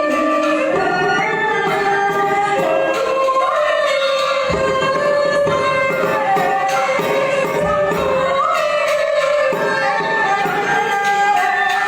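Vietnamese chèo folk opera music: a wavering melodic line with light percussion strikes, and some singing.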